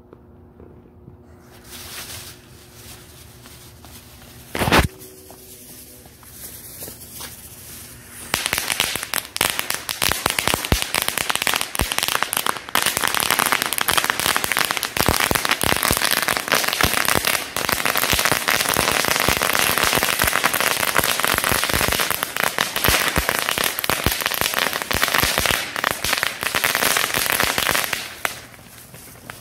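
Fireworks going off: one sharp bang about five seconds in, then from about eight seconds a dense, rapid crackle of many small pops that runs for some twenty seconds and dies away near the end.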